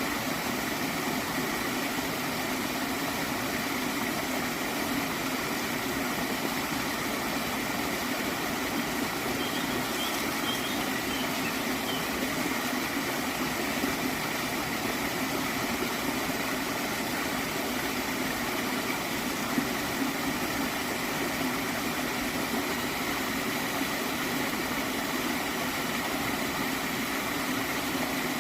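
Gently flowing stream of water, gurgling steadily and evenly.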